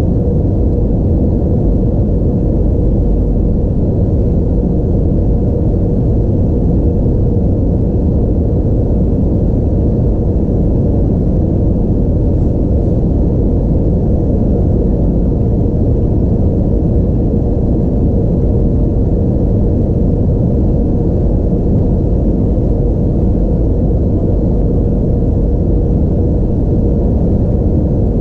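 Steady cabin noise inside an Airbus A320-232 in flight: a deep, even rush of airflow and its IAE V2500 turbofan engines, with a steady hum running through it.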